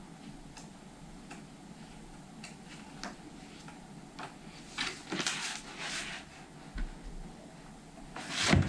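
Pages of a paper book being leafed through: light ticks and soft page rustles, with a run of louder rustling about five to six seconds in and again near the end.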